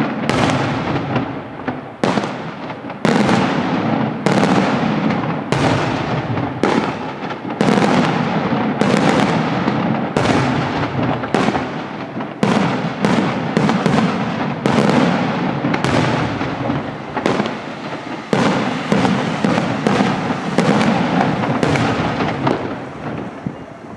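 Daytime fireworks: a fast run of sharp bangs from shells bursting overhead, a few each second, each one echoing. The bangs die away near the end.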